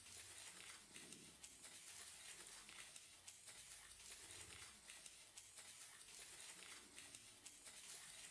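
Near silence: a faint even hiss with scattered soft ticks and two brief low hums.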